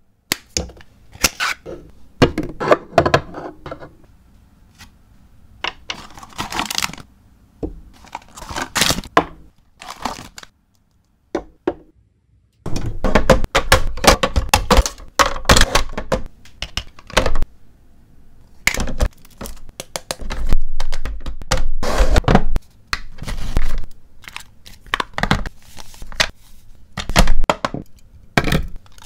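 Packaging and household items being handled during unboxing and restocking: plastic crinkling and tearing, with sharp clicks and knocks as things are set down in place. There is a short quiet gap near the middle, after which the handling is busier, with heavier knocks.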